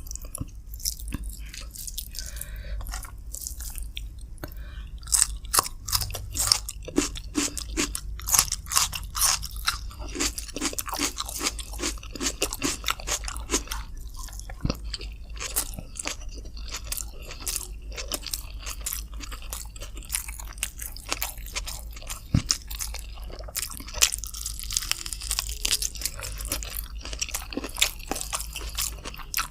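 Close-miked eating sounds of chicken with rice being chewed: rapid crunching and wet mouth clicks, densest from about five seconds in, over a steady low hum.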